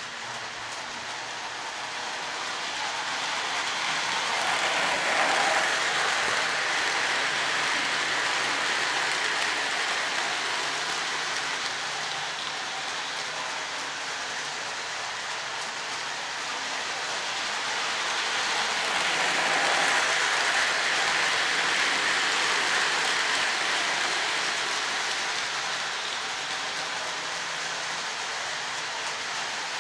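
Lionel GE U36C O-gauge model diesel and its coal hopper cars rolling around the track: a steady rushing rumble of wheels on rails with a faint low hum. It swells twice, about fifteen seconds apart, as the train comes round the loop.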